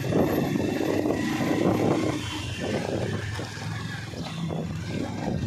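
Motorcycle engine running steadily as the bike rides along, its note shifting a little, with wind buffeting the microphone.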